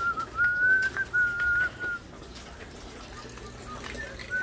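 A person whistling a tune: a run of clear, held notes in the first two seconds, then a few fainter short notes near the end.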